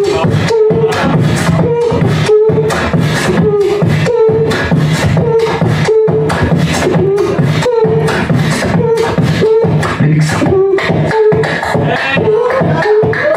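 Human beatboxing into a handheld microphone: a fast, steady beat of mouth-made kick, snare and hi-hat sounds, with a short hummed note recurring about twice a second over it.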